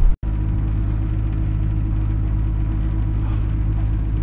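Sailboat's inboard diesel engine running steadily under way, a low even drone, as the yacht motors in a windless calm. The sound cuts out completely for a moment just after the start.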